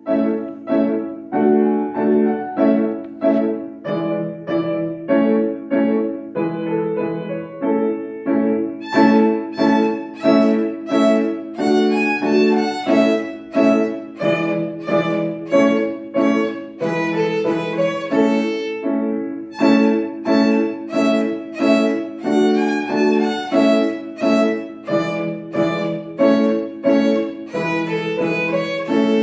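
Solo violin bowed through a melody, with grand piano accompaniment; the violin line grows brighter about nine seconds in.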